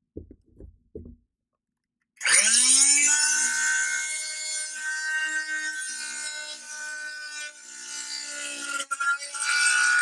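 A few faint clicks, then about two seconds in a Fein first-generation Multimaster oscillating multi-tool starts up with a rising whine and saws into PVC pipe with a wide fine-tooth wood/plastic blade: a steady, high-pitched buzzing cut that dips briefly near the end.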